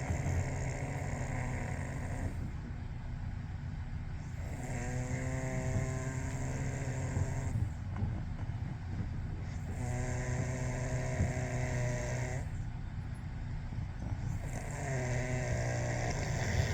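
A person snoring heavily in a steady breathing rhythm: four long, rasping snores about five seconds apart, each lasting two to three seconds, over a steady low hum.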